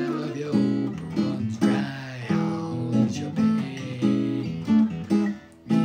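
Acoustic guitar strummed in a steady rhythm of chords, with a brief drop shortly before the end.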